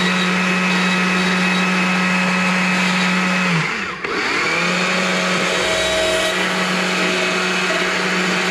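Stihl chainsaw with a carving bar running at high speed as it cuts into a small wooden owl carving. About four seconds in, the revs sag and the sound dips briefly, then it picks straight back up to full speed.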